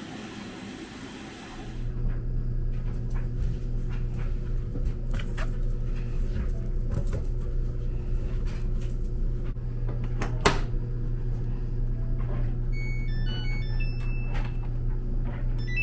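Laundry machine running with a steady low hum after a brief hiss, with scattered small clicks. Near the end it plays a quick electronic beeping tune.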